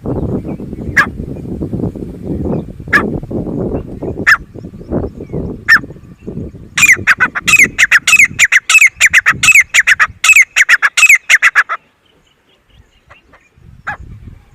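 Grey francolin calling. A few single sharp notes over a low rumbling noise come first. About seven seconds in, a loud rapid run of repeated high calls lasts about five seconds and stops abruptly.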